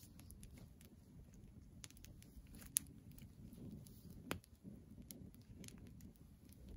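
Small campfire of kindling and split wood crackling faintly, with scattered irregular pops and two sharper snaps, about three and four seconds in.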